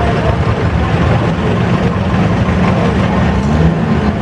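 Several antique farm tractor engines running slowly close by, blending into one steady low drone, with one engine's pitch creeping up slightly near the end.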